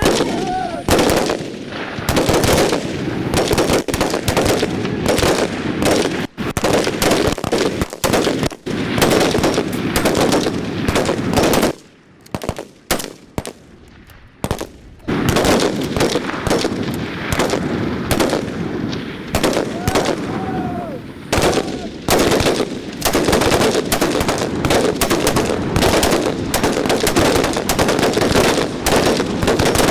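Heavy gunfire: rapid machine-gun bursts and single shots, nearly continuous, with a short lull about twelve seconds in before the firing picks up again.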